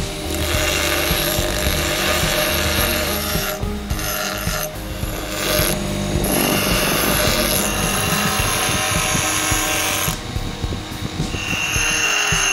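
Bench grinder running, its abrasive wheel grinding a small steel blade with a steady rasping noise that drops out briefly a few times as the contact breaks.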